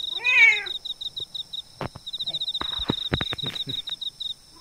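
A domestic cat gives one short meow near the start, its pitch bending down at the end. Behind it runs a high, rapid, even chirping, and a handful of sharp knocks come in the middle.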